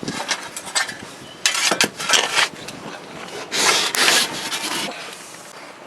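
Shovel blade scraping and scooping through dirt in several rough strokes, the two longest each lasting about a second.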